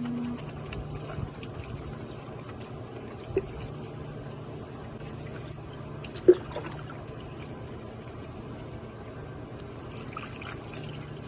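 Water running and trickling steadily over a dog being washed. A short sharp sound stands out about six seconds in, and a fainter one a little after three seconds.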